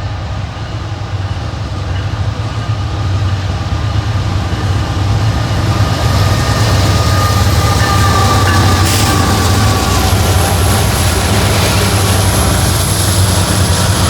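Diesel-led freight train passing close by: the locomotive's engine hum and the rumble of the train grow louder over the first several seconds, then hold steady as the locomotive and cars go by.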